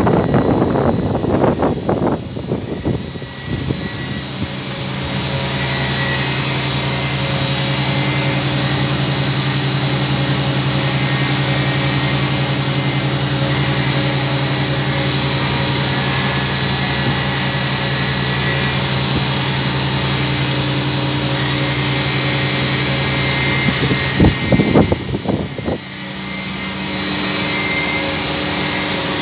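CNC vertical machining centre running a small drill into an aluminium block: a steady hum with high whines from the spindle and machine. A noisy rush fills the first few seconds and returns briefly about 25 seconds in, after which the tones change slightly.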